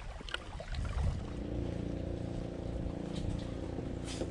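Motorboat engine running steadily at a distance: a low, even hum that sets in about a second in.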